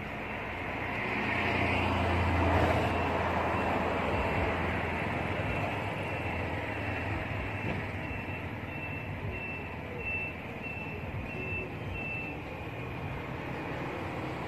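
A heavy vehicle's engine rumbling, swelling louder for a few seconds near the start. In the middle comes a run of about ten short, high, evenly spaced beeps, roughly one and a half a second, like a reversing alarm.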